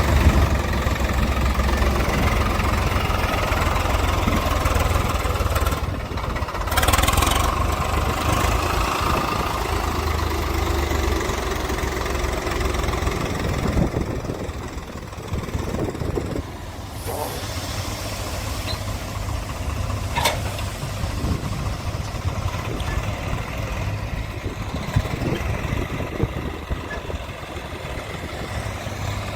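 Diesel engine of heavy machinery running with a steady low rumble; the level drops somewhat about halfway through.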